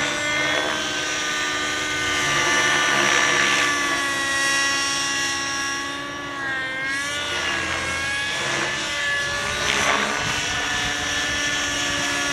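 Thunder Tiger Raptor 50 Titan RC helicopter in flight: its nitro glow engine and rotors whine steadily, the pitch dipping briefly and climbing back about halfway through.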